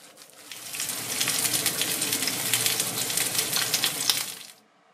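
Stuffed green peppers frying in a pan: a dense, crackling sizzle that swells in about half a second in and cuts off suddenly near the end.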